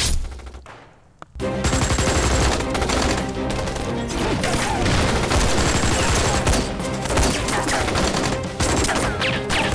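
Rapid, sustained gunfire from several automatic weapons, shot after shot in dense volleys. It breaks in suddenly about a second and a half in, after a brief drop in level.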